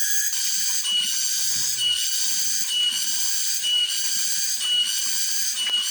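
Cicadas (tonggeret) singing: a loud, shrill high-pitched drone that pulses about once a second.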